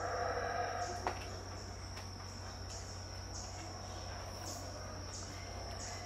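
Dawn insect chorus in tropical forest: a steady high-pitched whine with a pulsing buzz repeating about twice a second. The tail of a distant howler monkey roar fades out in the first second, and there is a single sharp click just after it.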